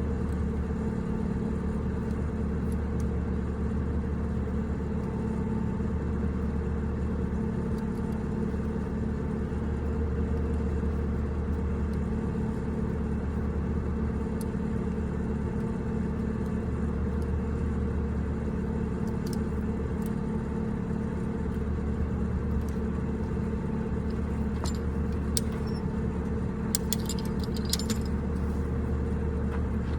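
An engine running steadily at idle, with a few light metallic clinks near the end.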